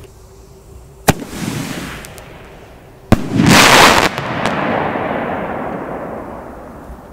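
A 50 mm aerial firework shell fired from its mortar tube with a sharp bang about a second in. It bursts overhead about two seconds later with a louder bang, followed by a long crackling shower that slowly fades.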